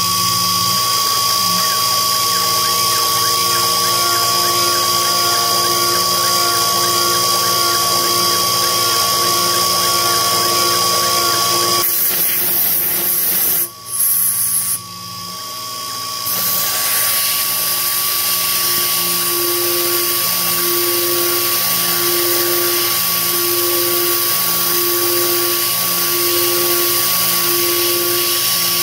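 Sherline CNC mill spindle running at about 10,000 rpm, its small carbide cutter cutting a hole in 7075 aluminium under kerosene-oil coolant: a steady high-pitched whine. There is a short patch of hiss with a brief dip midway, and in the second half a slow, regular pulsing in the hum as the cutter works.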